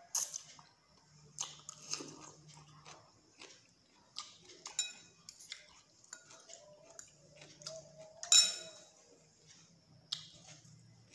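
A person eating noodle soup with a fork and spoon: noodles slurped, chewing, and cutlery clinking against a glass bowl, in irregular short bursts, the loudest a little after eight seconds in.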